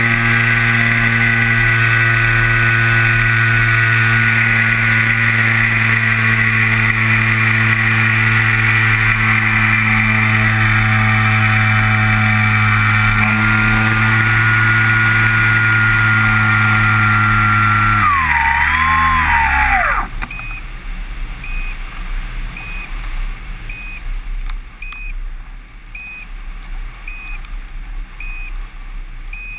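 Kyosho Stratus 2000 model airplane's motor and propeller running steadily at high power, heard close up from the nose. About eighteen seconds in it throttles down with a falling dip in pitch, then cuts out around twenty seconds in. After that comes a fainter uneven rushing noise, with a short beep repeating about once a second.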